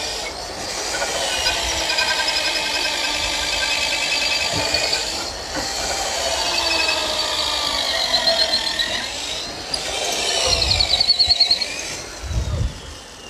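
Corded electric drill with a long auger bit boring through thick wooden hull planking: the motor whines and the bit squeals in the wood, its pitch rising and falling with the load. It drops out briefly three times and stops near the end, with a few dull thumps.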